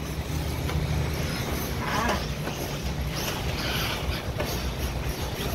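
Radio-controlled off-road race cars running on a dirt track, their sound coming and going as they pass, with a short rising whine about two seconds in, over a steady low hum.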